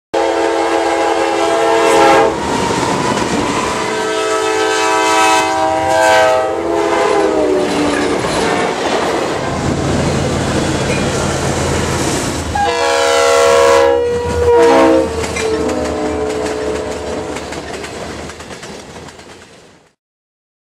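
Diesel freight locomotives sounding their multi-chime air horns in several long blasts, some dropping in pitch as a locomotive passes, over the rumble of engines and wheels on the rails. The sound fades out near the end.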